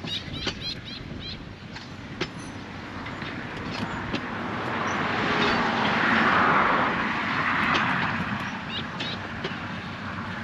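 A car passing on the road, its tyre and engine noise swelling to a peak about six seconds in and then fading away.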